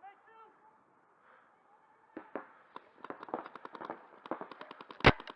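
Paintball markers firing: quick sharp pops several times a second, starting about two seconds in and growing denser and louder toward the end.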